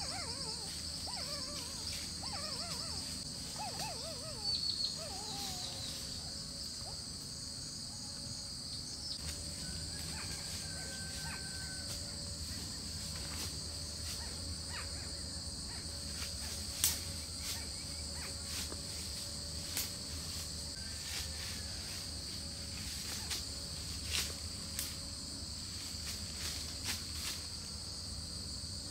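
Steady high-pitched drone of forest insects, with a few bird chirps in the first few seconds. Occasional sharp snaps and rustles of twigs and dry leaves as someone moves through undergrowth, the loudest about seventeen seconds in.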